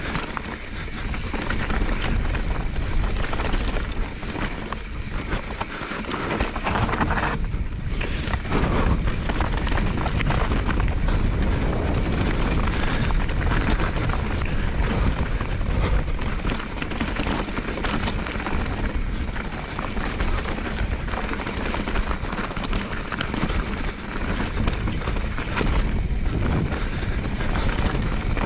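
Mountain bike descending a loose, rocky gravel trail at speed: a steady rush of wind buffeting the camera microphone, with tyres crunching and the bike rattling over stones in many small knocks.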